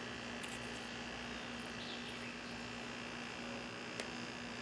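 Insects chirring in a steady high drone over a steady low hum, with faint light ticks of leaves being placed on paper and one sharper click about four seconds in.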